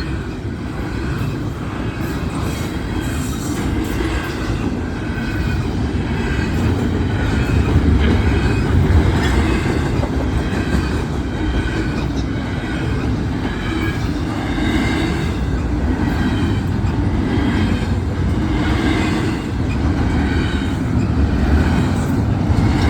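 Long freight train's cars rolling past close by: a steady, heavy rumble of wheels on rail, with faint high wheel squeals over it.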